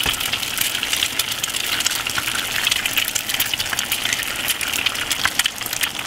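Eggs frying in bacon fat in a frying pan: a steady sizzle with many small crackles and pops.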